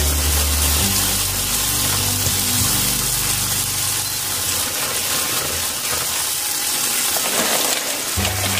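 Roasted peanuts sizzling and bubbling in a pan of boiling fish sauce, sugar and chili syrup as the liquid cooks down to a sticky glaze. Low music notes play underneath.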